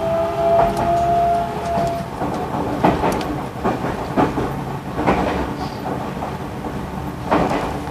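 JR Central 373 series electric train pulling away, heard from on board: its Toshiba GTO-VVVF inverter and traction motors whine in a few tones rising slowly in pitch, which fade out about two seconds in. Then the wheels clack over rail joints and points at irregular intervals.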